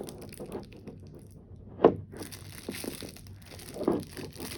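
Plastic wrapping being pulled off and crinkling in irregular rustles, with a sharp crackle a little under two seconds in and another loud rustle near the end.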